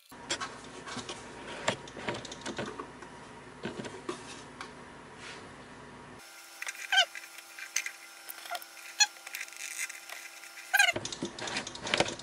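Hands handling stepper-motor wire leads and small plastic plug connectors: light irregular clicks and rustles, with several short squeaks that fall in pitch through the middle part.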